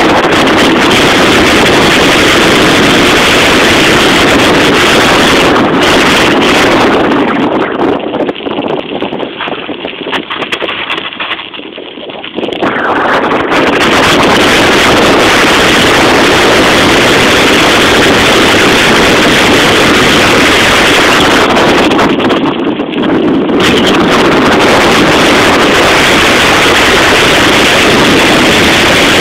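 Heavy wind buffeting the microphone of a camera on a bicycle speeding downhill on a gravel road. It eases off for several seconds about a third of the way in, and briefly again later.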